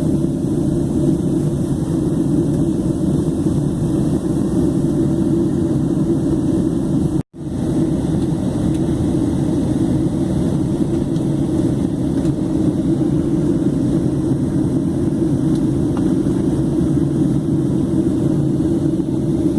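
Steady low rush of an airliner's cabin in flight: jet engine and airflow noise heard from a passenger seat. The sound cuts out completely for an instant about seven seconds in.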